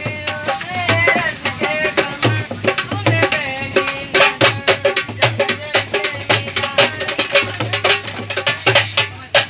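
Indian folk song performed live by wandering singers: a hand drum beats a fast, steady rhythm under a sung or played melody.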